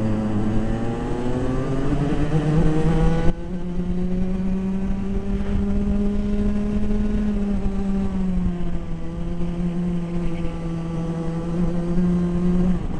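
Racing kart engine heard onboard, its note rising as it accelerates for the first few seconds, then holding a fairly steady high pitch with small dips and swells. A sudden knock about three seconds in, after which the sound turns duller.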